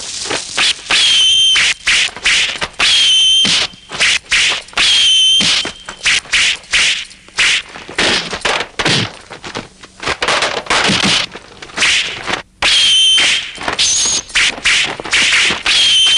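Film sword-fight sound effects: a rapid run of swishing blade swings and hits, broken by several ringing metallic clangs of blade on blade.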